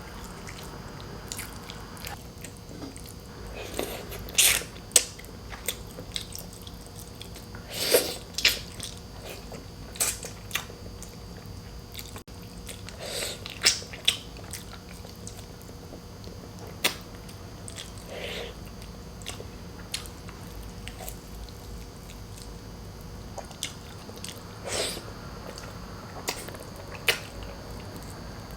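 Close-miked eating: a person chewing boiled pork hock and rice, with irregular sharp wet smacks and bites every second or two over a faint steady hum.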